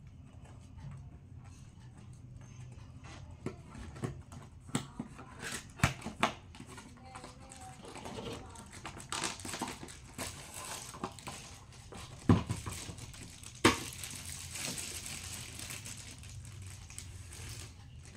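Unboxing noise: a cardboard box is opened and a speaker is drawn out of its plastic bag, with paper and plastic crinkling and rustling between scattered taps and clicks. Two sharp knocks a little after halfway are the loudest sounds.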